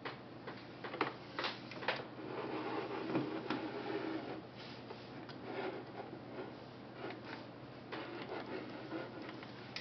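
A KMZ Zorki 4 rangefinder camera being handled, with scattered sharp clicks and ticks from its metal controls and body. Rubbing and knocks come as it is turned on a wooden table, over a steady low hum.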